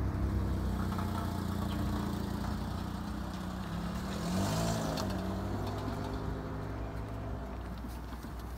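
Motor vehicle engine running with a steady low hum, and a vehicle driving past about four to five seconds in.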